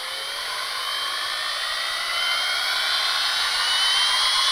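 Electric drill on the axle of a bicycle wheel, spinning the wheel up to speed as a gyroscope. Its whine climbs steadily in pitch and grows louder as the wheel speeds up.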